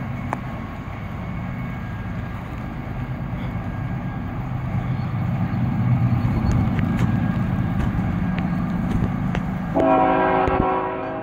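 CSX GE diesel locomotives, an ET44AH and an ES44AH, approaching with a low rumble that grows louder over a steady hiss. About ten seconds in, the lead locomotive sounds one horn blast lasting about a second.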